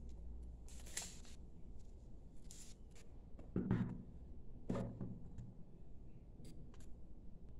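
Clear plastic wrapping crinkling as it is peeled off a book-shaped metal tea caddy. About three and a half seconds in come two dull knocks a second apart, as the caddy is gripped and its lid swung open, followed by a few faint clicks.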